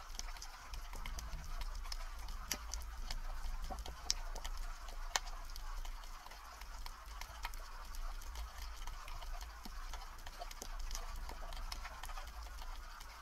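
Underwater ambience over a shallow rocky seabed: a steady low rumble of water movement with many irregular sharp clicks and crackles scattered through it.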